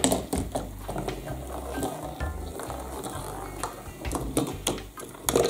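Marbles rolling and clicking along a cardboard marble run while its small low-speed motor lift turns, with many sharp clicks at irregular spacing.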